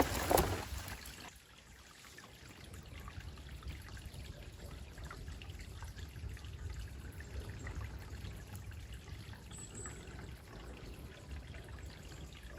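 Water trickling steadily, a small stream of floodwater running through the woodland. A louder rustle in the first second stops, and the trickle carries on faint and even.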